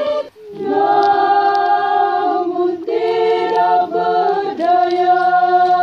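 A choir singing a slow hymn in long held chords, several voices together, with brief breaks between phrases.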